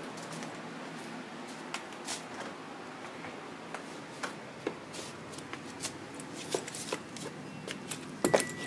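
Rustling and scattered light clicks and taps of a handheld phone being jostled and handled, over a steady hiss, with a louder knock and a faint high tone starting near the end.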